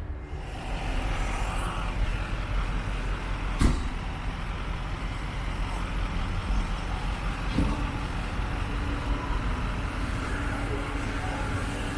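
Fire engine running with a steady low engine rumble. There is a sharp knock about three and a half seconds in and a softer one a few seconds later.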